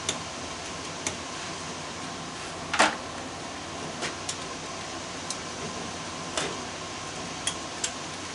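Scattered sharp clicks and clinks of hand tools and metal parts being handled while a furnace is dismantled for scrap, with one louder knock about three seconds in, over a steady background hiss.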